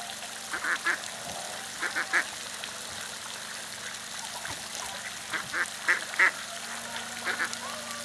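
Domestic mallard-type park duck quacking in short runs of two to five quick quacks, several times over.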